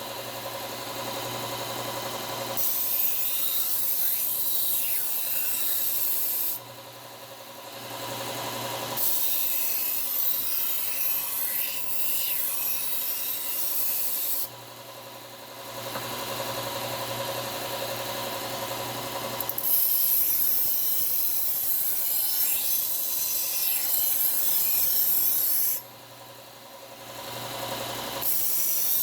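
Knife blade being ground against the running belt of a Bucktool slow-speed bench belt sander, in long passes of several seconds each. Three short breaks between passes leave only the sander motor's steady hum.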